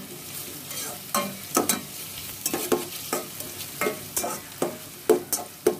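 Sliced onions frying in oil in a pot, sizzling, while a spoon stirs them, scraping and knocking against the pot about twice a second; the onions are being fried down into beresta.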